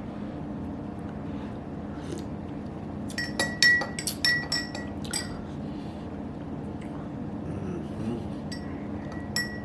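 Metal spoon clinking against a cup of hot tea while stirring: a quick run of clinks about three seconds in and a few more near the end, each leaving a short ringing note.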